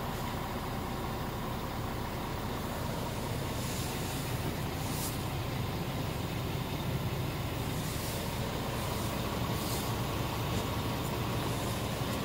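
Scania R490's 13-litre straight-six diesel idling steadily, heard from inside the cab, with a few faint rustles.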